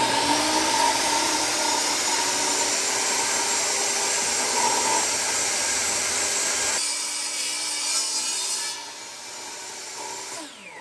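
Portable table saw ripping a sheet of plywood: the blade running loud and steady in the cut. About seven seconds in the sound changes, and near the end it quietens and falls away.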